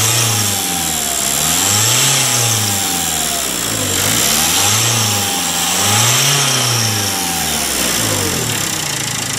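Dacia Sandero Stepway's turbodiesel engine running and revved up and down several times, with a thin whine rising and falling with the revs, on its freshly fitted rebuilt turbocharger.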